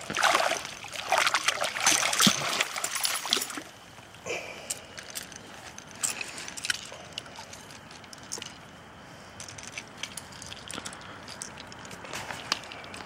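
Water splashing and sloshing around a caught striped bass as it is held in the shallows and released by hand. It is loud for the first four seconds or so, then settles to scattered small splashes and trickling.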